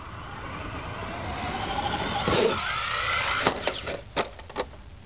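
Electric Traxxas R/C truck accelerating, its motor whine rising in pitch as the noise builds, then a quick run of knocks and clatters from about three and a half seconds in as the truck lands and tumbles.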